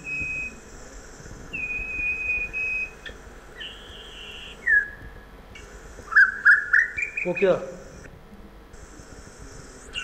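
Recorded song of a white-rumped shama played back over a speaker, mimicking other birds. It opens with several long, level whistled notes copying a common iora. About six seconds in comes a quick run of rising notes copying an Asian koel.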